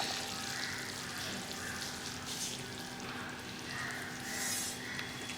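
Thick pepper-garlic gravy (milagu poondu kuzhambu) simmering, a soft irregular sputter of bubbles over a faint steady hum, at the consistency the cook calls done after about 20 minutes of boiling.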